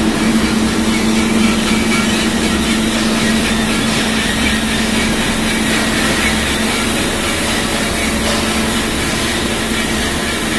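Steel coil slitting line running, with sheet steel being slit into narrow strips and fed through the rollers: a steady mechanical din with a low hum.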